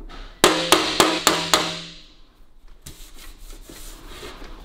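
A body flipper (slapping spoon) strikes the aluminium bonnet panel five times in quick succession, each a sharp ringing tap. These are metal-finishing taps to level out high and low spots. Faint scraping and rubbing on the panel follow.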